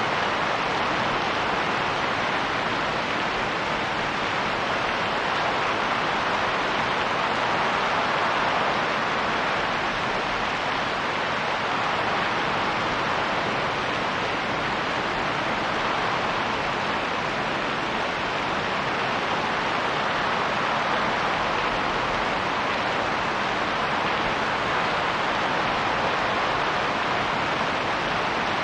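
Rain falling steadily with wind, an even hiss that swells slightly now and then.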